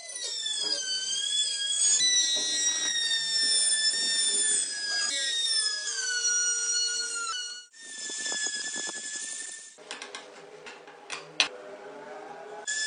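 High-pitched whine of a small power tool. Its pitch sags and recovers as it is loaded, and it is cut off abruptly twice, with clicks and lower tones near the end.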